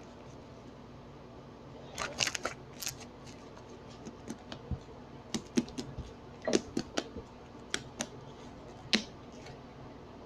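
Slime being poked and squished by hand, making irregular sticky clicks and small pops that start about two seconds in.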